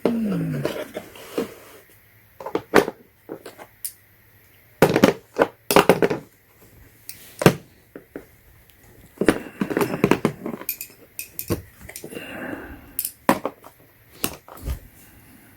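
Steel ratcheting combination wrenches being handled and pushed into the slots of a plastic hard case: irregular metallic clinks, clicks and knocks.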